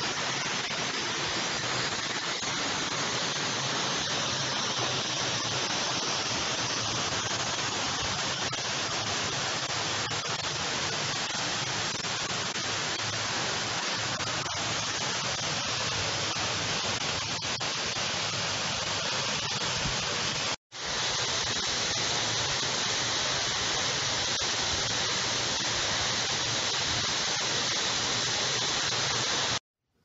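Steady rushing of Munising Falls, the waterfall's noise even and unbroken apart from a brief gap about two-thirds through.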